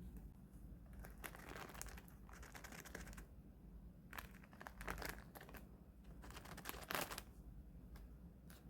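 Faint crinkling and rustling of food packaging, in three short bouts.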